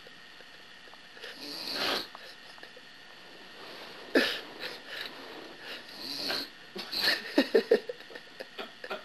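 A person snoring after a night of heavy drinking, with several loud snores a couple of seconds apart; the last breaks into a quick series of rattling pulses.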